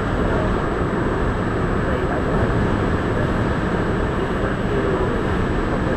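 Steady tyre and road noise with the car's engine, heard inside the cabin of a car cruising at highway speed, plus a thin, high, steady tone.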